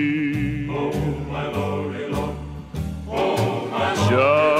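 Gospel recording between sung lines: a held sung note dies away about a second in, low bass notes carry on alone, then a choir comes in about three seconds in and holds a note with vibrato.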